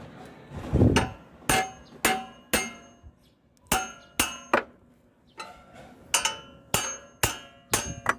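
A 22 mm wrench on a tight oxygen sensor being struck about a dozen times, sharp metallic clanks with a brief ring after each, to break the sensor loose.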